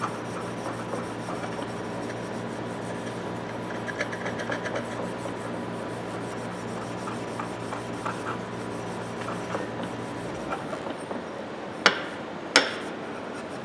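Fine 0000 steel wool scratching and rubbing over a freshly blued steel ratchet part, worked back and forth into a groove. Near the end there are two sharp clicks about half a second apart.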